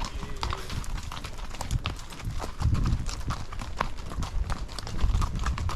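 Horses' hooves clip-clopping on a trail as several horses are ridden: a run of irregular sharp knocks over a low rumble.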